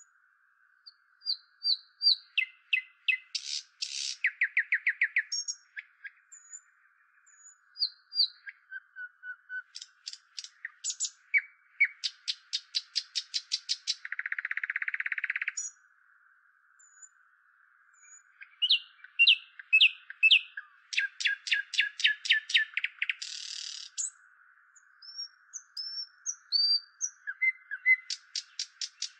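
Indian nightingale singing a long, varied song: phrases of clear whistles, rapid runs of repeated notes, fast trills and short buzzy notes, with brief pauses between them. A faint steady hiss sits underneath.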